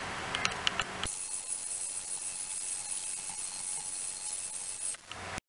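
Ultrasonic cleaning tank running with water in it: a steady high hiss, with a few sharp crackles in the first second. About a second in, the hiss turns brighter. It cuts out briefly near the end.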